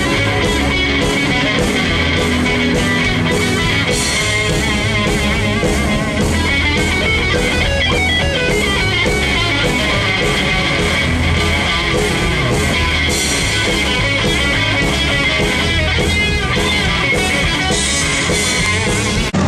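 Live rock band playing, with electric guitar to the fore over bass and drums keeping a steady beat.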